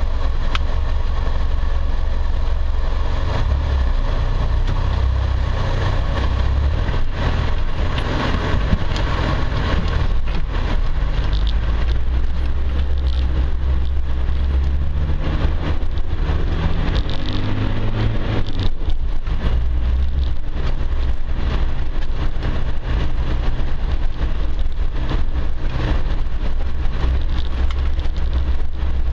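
Off-road 4x4's engine running at low speed over a rough stony track, heard from the vehicle as a steady low rumble with rattles and knocks from the rough ground. About two-thirds through, the engine note rises briefly.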